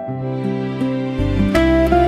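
Instrumental background music: plucked string notes changing pitch, with a low bass note coming in about halfway through.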